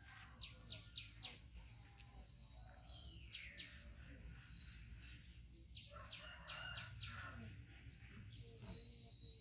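Small birds chirping, faint: many short high calls in quick runs, a few sliding downward, over a low background rumble.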